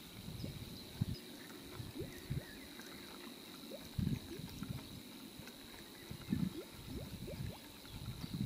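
Scattered soft, irregular low thumps and knocks from handling in an inflatable fishing boat, over a faint steady high tone.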